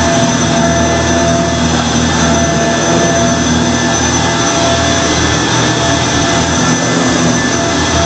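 A 2006 Kenmore Progressive Intelliclean vacuum cleaner running steadily, a loud even rush of air with a constant motor whine over it.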